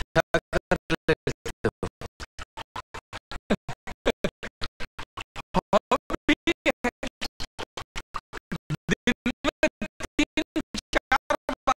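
Film dialogue, men's voices, chopped by regular dropouts about five times a second into a rapid, stuttering pulse that garbles the speech.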